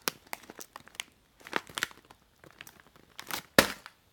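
Snack bag of cassava strips crinkling as it is handled, in irregular crackles, with one sharper, louder crackle near the end.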